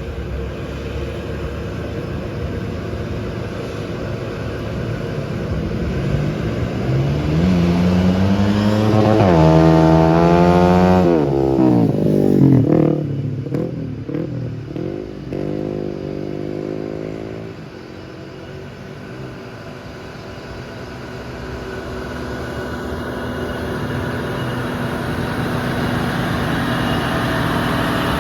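Truck engine labouring up a steep climb, with its note rising and holding strong, then dropping off about halfway through. A second, shorter rising note follows, and the engine settles into a lower, steady rumble that swells again near the end.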